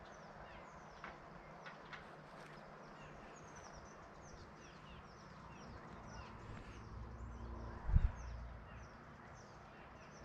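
Small birds chirping over and over, many short high chirps that drop in pitch, over quiet outdoor background noise. A low thump about eight seconds in is the loudest sound.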